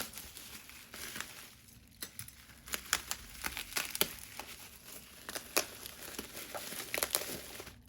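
Packaging being handled, crinkling and crackling in irregular sharp bursts as it is unwrapped.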